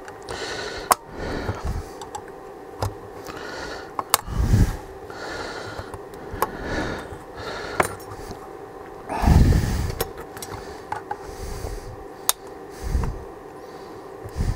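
Plastic smart-plug case being pried open with tools at its glued seams and corners: scattered sharp clicks and snaps, with three louder low rustling bumps of handling.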